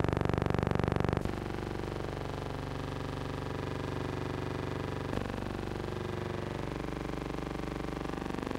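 A steady, low hum made of several pitches at once. It shifts abruptly with a click about a second in and again about five seconds in.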